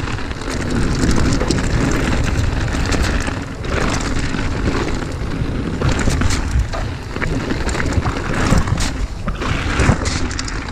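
Wind buffeting a chest-mounted action camera's microphone and mountain bike tyres rolling over a loose, rocky trail, with frequent clicks and knocks as the bike rattles over stones.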